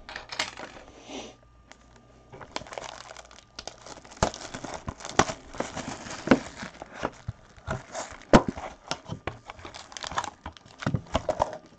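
Cellophane shrink-wrap being torn off a cardboard trading-card box and crinkled in gloved hands, then the box opened and a wrapped pack lifted out: a dense run of sharp crackles and small snaps.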